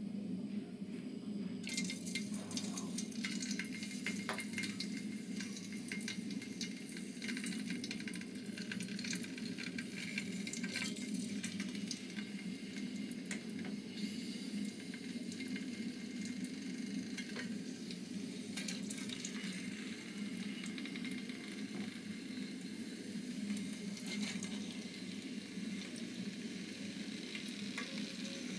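Raw potato strips sizzling and crackling in hot oil in an aluminium pot as chips fry, with frequent small pops. The sizzle starts about two seconds in as the potatoes go into the oil, over a steady low hum.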